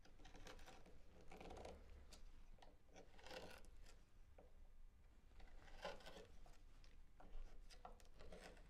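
Faint, short scraping cuts of a BeaverCraft K8a/14 compact short bent gouge scooping shavings out of a silky oak coffee-scoop bowl. There are about five strokes, a second or two apart.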